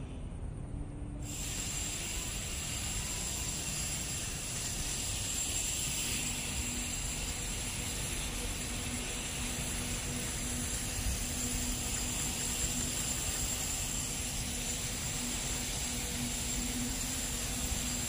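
Steady hiss over an uneven low rumble: wind buffeting the microphone high on an open rooftop. A faint steady hum joins about six seconds in.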